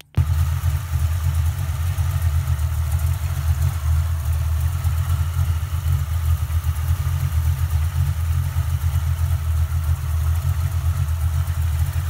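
Ford small-block Windsor pushrod V8 idling steadily with its valve covers off and the rocker arms exposed. It cuts in abruptly and holds an even idle.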